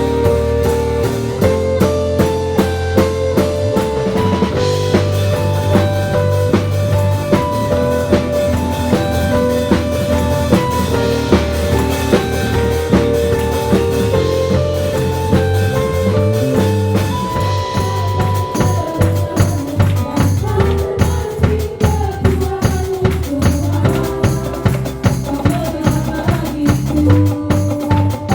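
A band plays an instrumental passage of a worship song, with a drum kit keeping a steady beat under sustained keyboard-like chords and bass notes.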